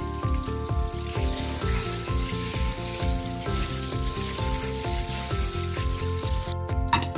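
Water from a kitchen sink's pull-out spray head hissing onto raw meat in a stainless steel sink, stopping abruptly near the end, over background music with a steady beat.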